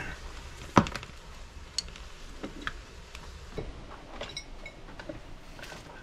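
Hands handling electrical cords and plugs on a workbench: scattered light clicks and knocks, the loudest a sharp knock just under a second in.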